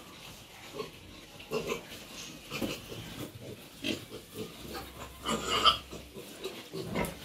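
Pigs grunting in a pen in short, irregular sounds, with one louder, higher-pitched cry a little over five seconds in.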